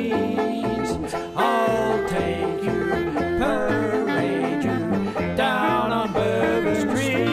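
Background music: a song with plucked strings over a steady, repeating bass line.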